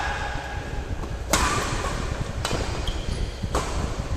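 Badminton rackets striking a shuttlecock during a doubles rally: three sharp hits about a second apart, over a steady low hum.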